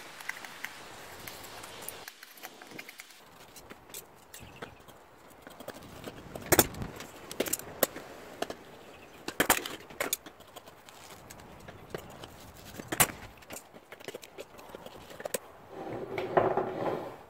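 Handling noise from a vinyl seat cover and metal seat pan being worked by hand: rustling with scattered sharp clicks and knocks, the loudest about six and a half, nine and a half and thirteen seconds in, and a brief denser rubbing near the end.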